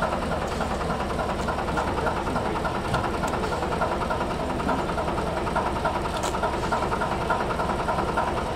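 Diesel engine of a small NS 300-series 'Sik' shunting locomotive idling steadily.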